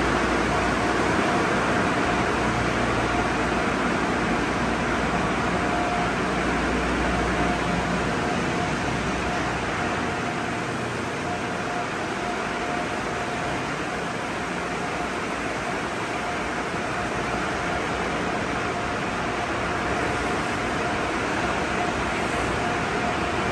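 Sonny's friction car wash tunnel running: a steady wash of water spray, spinning brushes and motors, with a steady mid-pitched hum. A low rumble fades out about ten seconds in.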